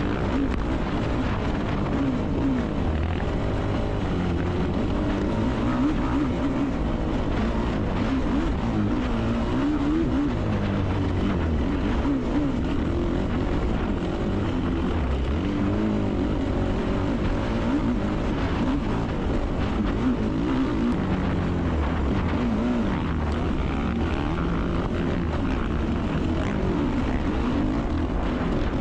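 Yamaha YFZ450R's single-cylinder four-stroke engine under race throttle, heard from an onboard camera on the quad; the engine pitch keeps rising and falling as the rider works the throttle and gears.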